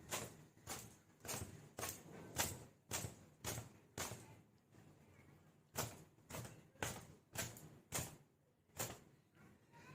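Repeated swishing strokes through wet hair, roughly one or two a second, with short pauses in between.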